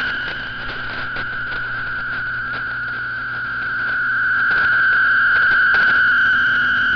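Shortwave 8PSK-250F digital data signal from a communications receiver: a steady buzzing tone band, peppered with static crackles. The signal fades slightly about half a second in and comes back up from about four seconds.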